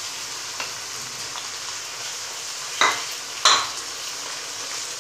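Hot oil sizzling steadily as blended tomatoes fry with browned onions in a pan, stirred with a spatula. There are two louder, short clatters of the spatula against the pan about three seconds in.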